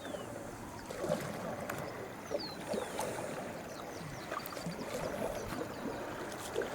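Water sloshing and trickling against a dugout canoe on the river, with a bird's short falling whistle about two and a half seconds in.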